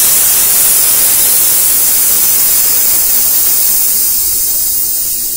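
A man's long, loud hissed exhale through the teeth, starting suddenly and fading slowly: a controlled breath let out over eight counts in a breathing exercise.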